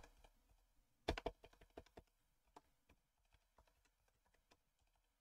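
Faint typing on a computer keyboard: a quick run of keystrokes about a second in, then a few scattered taps.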